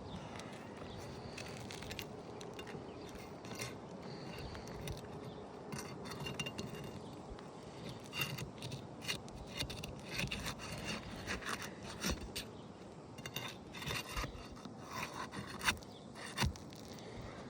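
Scraping and rubbing at asphalt roof shingles with irregular clicks and knocks, becoming busier about halfway through, as a shingle is worked loose and its nails are pulled.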